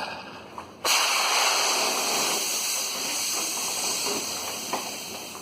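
Aircraft life vest's CO2 inflation cartridge firing: a sudden loud hiss of escaping gas about a second in, slowly tapering off as the vest fills.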